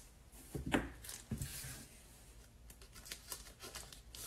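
Foil trading-card pack and cards being handled: soft crinkles of the wrapper about a second in, then light scattered clicks and ticks as the cards are slid out.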